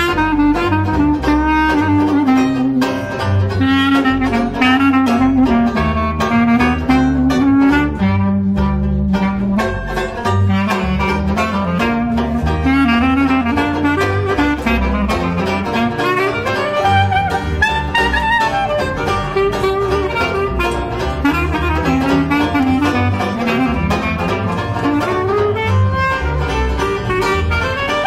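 Small jazz band playing: a clarinet carries the melody over a steady strummed banjo rhythm and a walking double bass.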